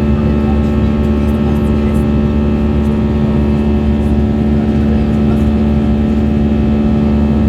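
Airbus A320's jet engines running, a loud steady drone with a constant hum that does not change in pitch.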